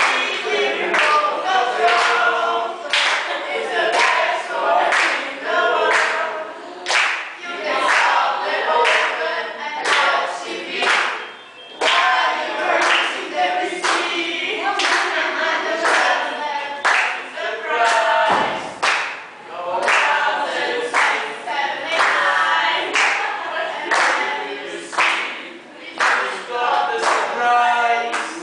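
Several voices singing together, with sharp claps or beats about once a second keeping time.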